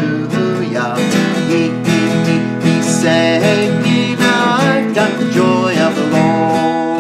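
A man singing a children's praise song to his own strummed acoustic guitar.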